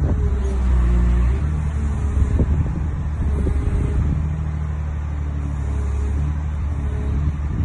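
Cat 345D hydraulic excavator's C13 diesel engine running steadily, its note shifting slightly a few times. A few short knocks sound, one near the start and a couple about two and a half seconds in.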